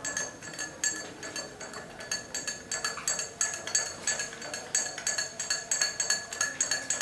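A teaspoon stirring in a glass, clinking against the glass wall about three times a second as it dissolves sugar into hot lemon water.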